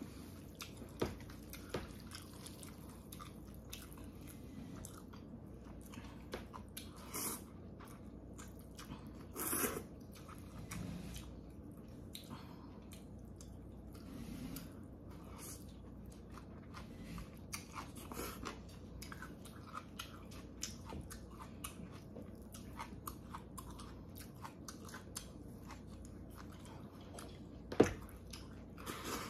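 A person eating Korean thin noodles (janchi guksu) with chopsticks and a soup spoon: soft, close chewing and small mouth clicks throughout, with one sharp click near the end.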